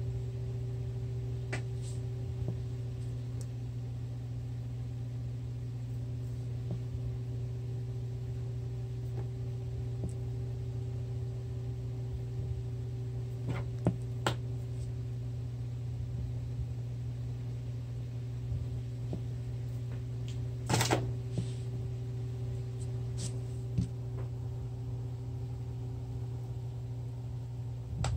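Steady low electrical hum from a room appliance, with a few scattered light taps and knocks from a kitten batting at a feather wand toy on a tiled floor, including a brief flurry of them about two-thirds through.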